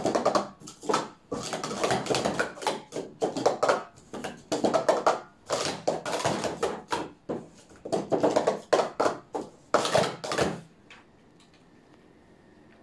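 Plastic sport-stacking cups clattering and clacking in quick runs as a full cycle is stacked up and taken down at speed; the clatter stops near the end.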